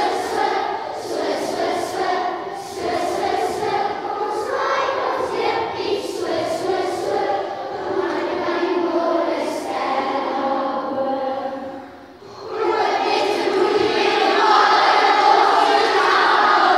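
A large group of young children singing together in unison. The singing breaks off briefly about two-thirds of the way through, then starts again louder.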